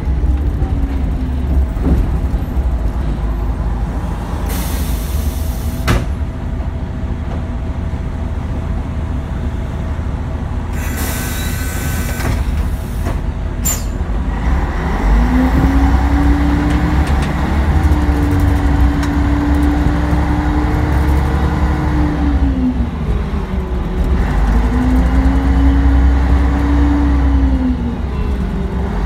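City bus driving, heard from inside at the front: a steady low engine rumble, two short hisses in the first half, then a whining tone that rises as the bus picks up speed, falls as it slows for a roundabout, and rises again.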